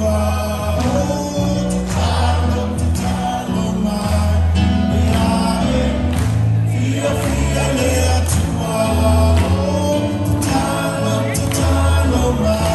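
A choir singing a carol over instrumental accompaniment, with a steady bass line underneath that moves to a new note every second or two.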